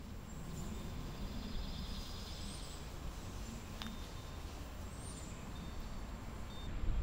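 Outdoor spring ambience: a steady low rumble of wind or distant background with a few faint high bird chirps and a short trill, and a single sharp click near the middle.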